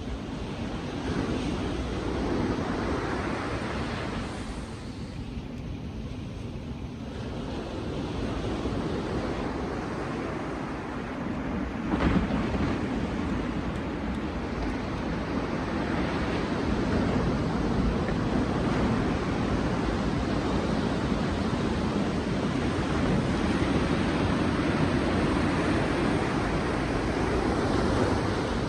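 Sea waves breaking on a beach, the surf swelling and easing with a dip in between, with wind noise on the microphone. There is one brief sharp knock about twelve seconds in.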